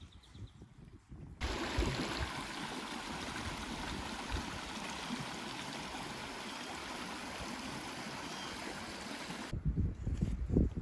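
Flowing stream water, a steady even rush that starts abruptly about a second and a half in and cuts off near the end, where a low rumble takes over.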